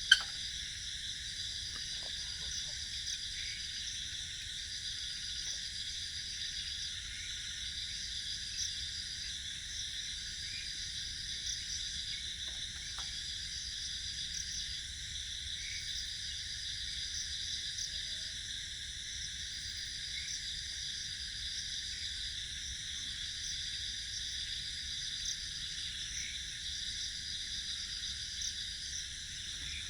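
Night insects, crickets among them, chirring in a steady chorus, with a higher trill that comes and goes in bursts of about a second or two. A single sharp click at the very start.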